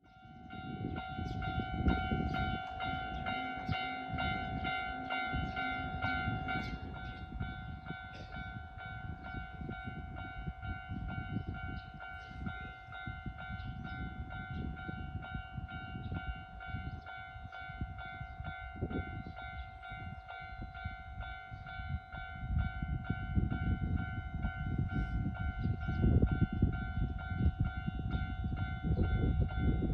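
Japanese level-crossing warning bell ringing steadily and without a break, over a low rumble that grows louder in the last several seconds as a train approaches.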